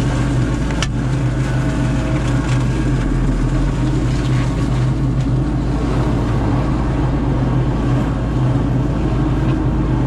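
Prime Tech PT175 forestry mulcher working under load: its diesel engine drones steadily while the FAE drum head grinds through a brush pile of pine limbs. There is a sharp snap about a second in.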